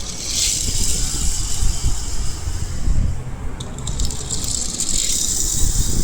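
Small toy cars rolling across a floor, their wheels rattling, in two long pushes with a low rumble underneath.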